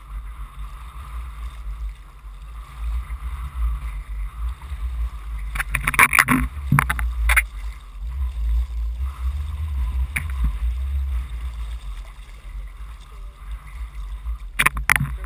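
Water sloshing and splashing against a camera held at the water's surface, over a low rumble of wind on the microphone. The sharpest splashes come in a cluster about six to seven seconds in, once around ten seconds, and again near the end.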